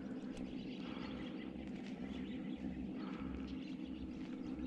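Birds chirping faintly in short calls over a steady low outdoor rumble.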